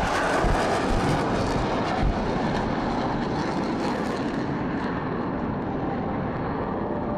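Jet engine noise from F/A-18 fighters flying over the field: a steady, loud rush.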